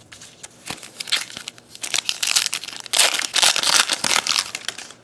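A foil trading-card pack wrapper being torn open and crinkled by hand, a run of loud crackly rustling that builds about a second in and is loudest over the last three seconds.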